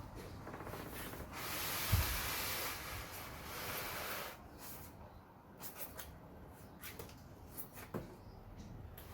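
A scraping noise lasts about three seconds, with a thump partway through, followed by scattered light clicks and taps.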